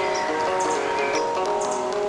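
Soft instrumental music of long held notes, with small birds chirping high above it and a steady hiss beneath.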